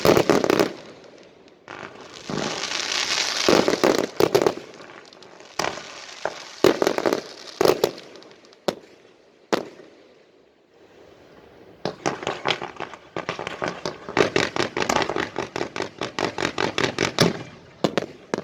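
Fireworks going off: hissing bursts and crackling with scattered sharp bangs, then a rapid run of bangs, several a second, for about five seconds before it stops near the end.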